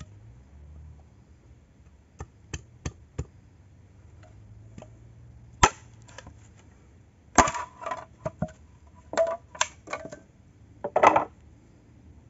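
Wooden baton knocking on the back of a machete to split a green bamboo pole: four light taps, then a run of louder, irregular knocks.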